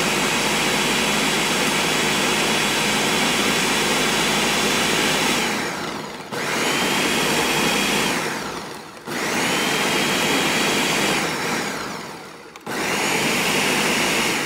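Countertop blender motor running at full speed through a thick purée of peppers, onions, scallions and herbs, worked in pulses: three times the whine falls away as the blades spin down, then starts up again abruptly, and it spins down once more near the end.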